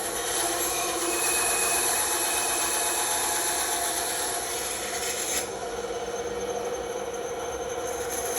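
Bandsaw blade cutting through a plywood cutout, a steady rasping over the hum of the running saw; about five seconds in the cutting noise stops short and the motor runs on.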